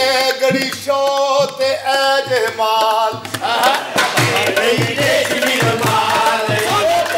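A man singing a qawwali-style melody with long, bending held notes over a steady hand-drum beat of about two strokes a second.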